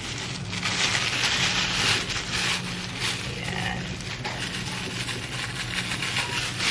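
Pot of chicken soup with patola and miswa bubbling on the stove: a rushing, hissing simmer that is strongest in the first few seconds, over a steady low hum.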